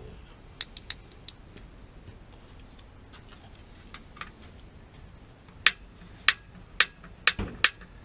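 Sharp, light metallic clicks from parts being handled at a gas water heater's burner access: a few in quick succession about a second in, then five louder, evenly spaced clicks about two a second near the end.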